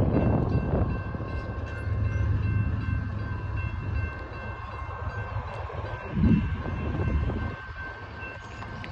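Railroad crossing warning bell ringing steadily while the gate arms lift after the train has passed, over a low rumble. There is a brief low thump about six seconds in.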